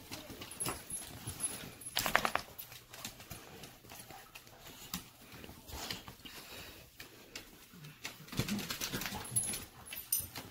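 A dog up close to the microphone, sniffing and snuffling in short puffs, with scattered clicks and small noises.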